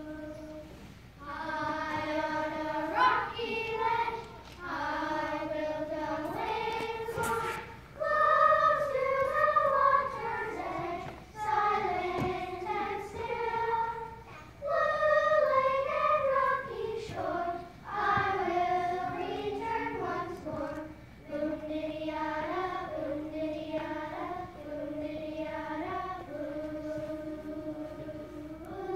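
Children's choir singing a single melody together, in phrases of a few seconds with short breaks between them.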